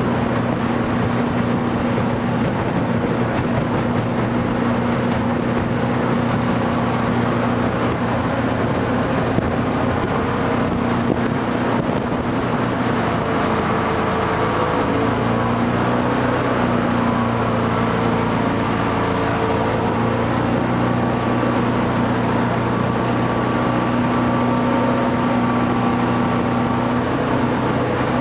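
Jet boat engine running steadily at speed over a constant rush of noise; the engine note steps up and down a little about halfway through as the boat changes pace.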